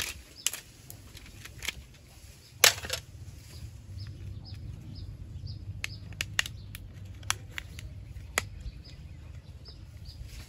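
Scattered clicks and knocks of plastic and glass phone bodies being picked up and handled, the loudest knock about two and a half seconds in. A short high chirp repeats steadily underneath.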